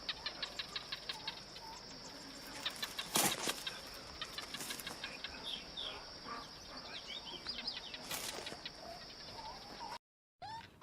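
Chickens clucking and chirping in short calls of varied pitch, over a steady high-pitched background tone, with a quick run of ticks at the start and a couple of louder crackles.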